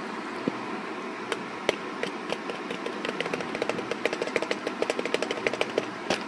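Quick, light clicks and taps over a steady hiss. They start about a second in and come faster and denser toward the middle and later part.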